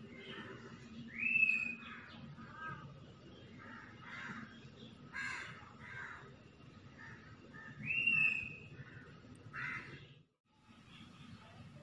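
Birds calling: a scatter of short harsh calls, and two loud whistled notes about a second in and about eight seconds in, each rising and then holding steady. A low steady hum runs under them, and the sound drops out briefly near the end.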